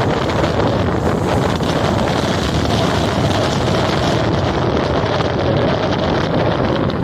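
Rough sea surf rushing steadily under strong wind, with wind buffeting the microphone.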